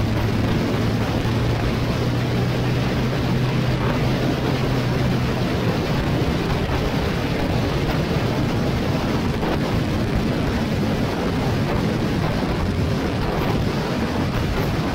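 Motorcycle riding at road speed: wind rush on the microphone over the engine's steady drone. The drone stands out for the first five seconds or so, then sinks into the wind noise.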